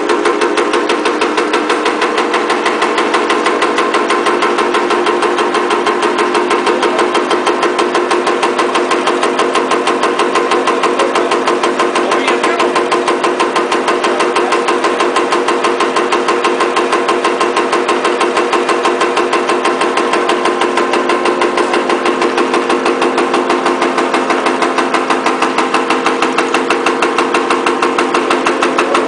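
Power press punching spangles (sequins) at high speed: a steady, rapid, even run of stamping strokes with a constant mechanical hum under them.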